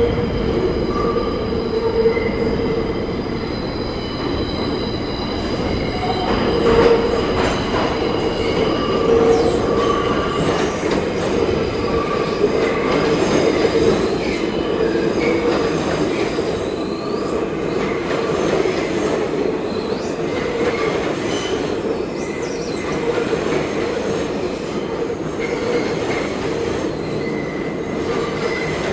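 New York City subway train running on the track with a steady rumble, its wheels squealing in high tones that come and go.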